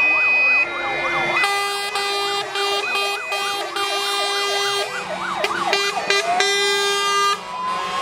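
Several fire engine sirens sounding together as the trucks pass, their fast rising-and-falling sweeps overlapping, with long steady horn blasts through the middle. Near the end one siren slowly winds up in pitch.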